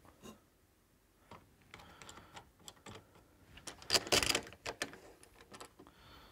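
Scattered light clicks and knocks of a bench clamping jig being set up: sliding clamp blocks and plastic star knobs moved and tightened against a glued-up wooden bowl, with a louder cluster of clatter about four seconds in.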